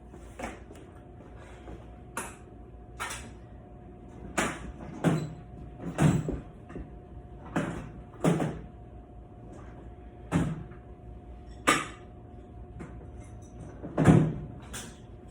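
Irregular knocks and clunks, about a dozen, unevenly spaced: hard objects being handled and set down during oil-change work. The loudest come around six seconds in and near the end. A faint steady hum runs beneath them.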